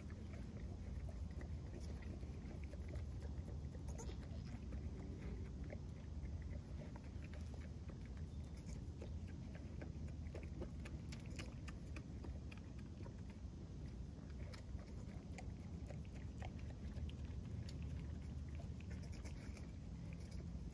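Goats moving close by: many soft clicks and rustles over a low, steady rumble.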